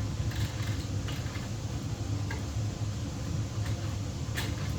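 Scattered small clicks and ticks of electrical wires being handled and twisted together in a switch box, over a steady low hum.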